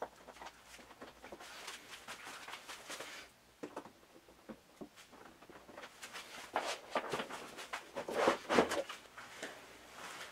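Faint scattered wooden knocks and clatter from a harpsichord keyboard being handled and slid out of its case, busier and louder about two-thirds of the way through.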